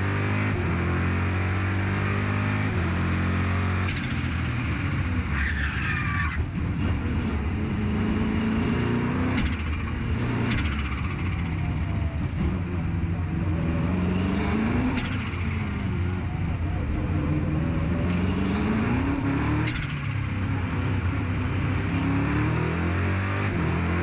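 BMW M race car's engine at full throttle on track, its note climbing in a series of long rising sweeps as the car accelerates through the gears, with a steady drone at the start and end.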